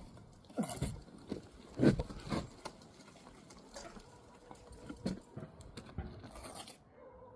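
Scattered scrapes and taps of a mason's trowel working mortar against brick, irregular, the loudest scrape about two seconds in.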